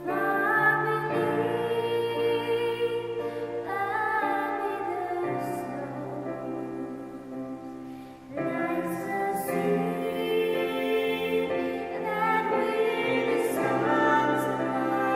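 Slow vocal ballad: singing voices hold long notes with vibrato over a sustained accompaniment. The music drops back briefly about eight seconds in, then swells again.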